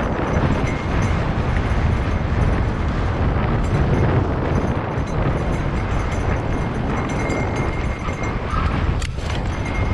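Wind rushing over an action camera's microphone and mountain bike tyres rumbling over a rocky dirt singletrack at speed, with a sharp knock about nine seconds in.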